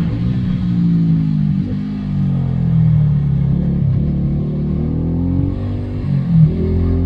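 Beta RR 125 four-stroke single-cylinder motorcycle engine running without its exhaust dB killer while riding. Its pitch rises and falls several times as it accelerates and slows, with a short loud blip about six seconds in.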